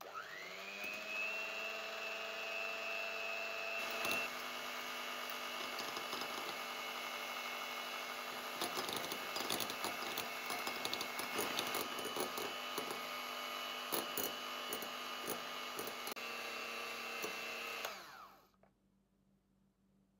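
Electric hand mixer whisking egg whites in a glass bowl. The motor spins up to a steady whine with scattered clicks of the beaters knocking the glass, then winds down and stops near the end.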